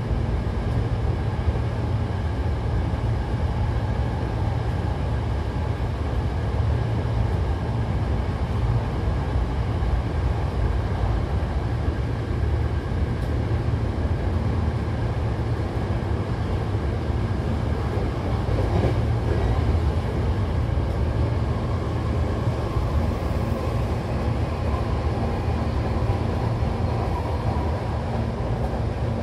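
Hankyu commuter train running along the line, heard from inside the passenger car: a steady low rumble with a faint steady hum above it.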